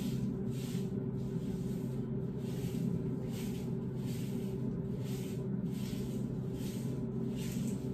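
Gloved hands rubbing dye through wet, curly hair, making short rustling swishes roughly every half second to second, over a steady low hum.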